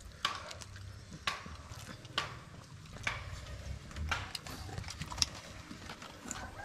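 Scattered sharp clicks and light knocks, roughly one a second, of bowls and utensils being handled during a shared meal, over a low rumbling background.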